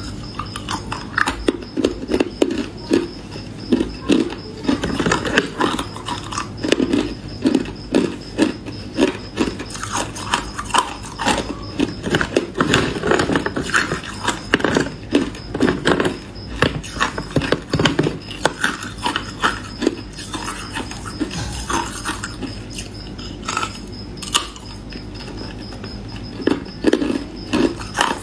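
Hard ice being bitten and crunched in the mouth up close: rapid runs of crisp crunches, several a second, with a couple of short quieter pauses between mouthfuls.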